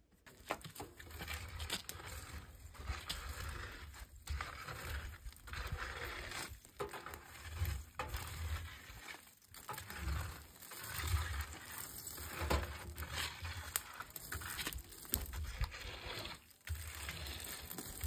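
Hot embers being raked out of a clay bread oven with a long wooden pole: continuous scraping and crackling of coals tumbling onto the ground, with a recurring low rumble.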